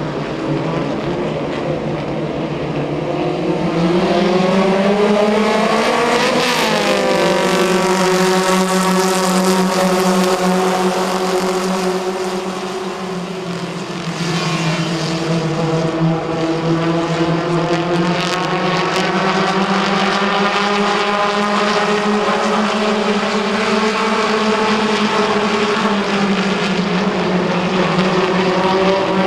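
A field of stock car engines racing on a paved oval, running hard with a steady, layered engine tone. The pitch climbs about five to six seconds in as the cars accelerate, and the sound drops back briefly around the middle.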